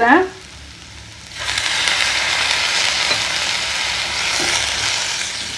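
Water sprinkled into hot oil in a stainless steel kadai of frying dried anchovies (nethili karuvadu): a loud sizzle starts suddenly about a second and a half in, hisses steadily, then eases off near the end.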